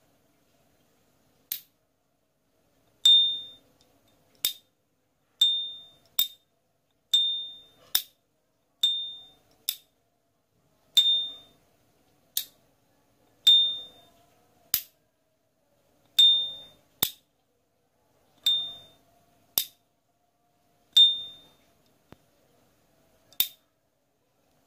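S.T. Dupont lighter lid being flipped open and snapped shut over and over. Each opening gives the lighter's clear, high metallic 'ping' that rings for about half a second, and each closing a short dry click, with nine pings in all.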